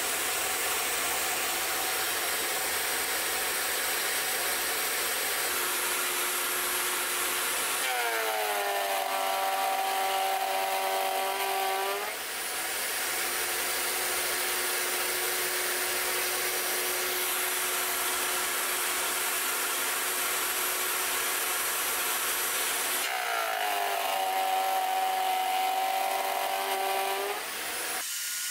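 Vevor 12.5-inch benchtop thickness planer running, with its two-blade cutterhead spinning. Twice, about eight seconds in and again near the end, a board of dry quartersawn oak passes through for about four seconds; each cut adds a whining tone that dips in pitch as the blades take the load and rises back as the board leaves.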